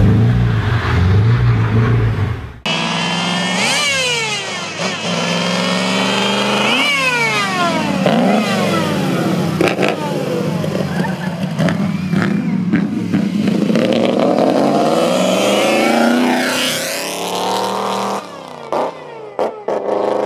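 Supercharged 3.4-litre straight-eight of a Mercedes-Benz W25 Grand Prix car at full throttle up a hillclimb, its pitch climbing and dropping back sharply at each upshift, then rising again as it passes. A different loud sound fills the first couple of seconds and cuts off abruptly.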